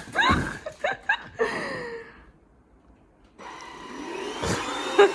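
A few short gliding yelps, then a pause, then a vacuum cleaner motor switches on about three and a half seconds in and runs up to a steady whine. The cleaner is being tested because it has been blowing debris out instead of sucking it in.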